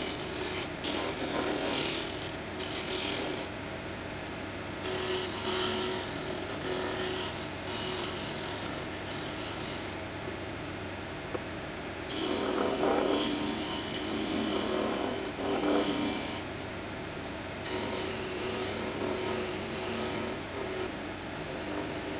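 Disc sander running with a steady motor hum while a wooden piece is pressed against the spinning abrasive disc to round its end. Bursts of sanding noise come and go as the wood touches and leaves the disc, loudest between about twelve and sixteen seconds in.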